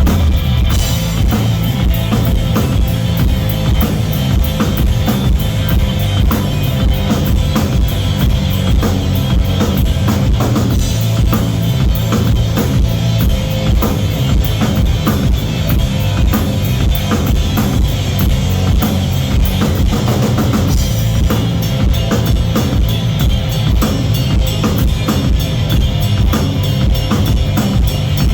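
Live rock band playing at full volume, the drum kit driving a steady beat with kick drum and snare under guitars, the drums coming in right at the start.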